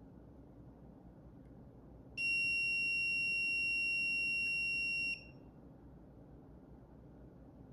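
A single steady, high-pitched electronic beep lasting about three seconds, starting about two seconds in and cutting off sharply.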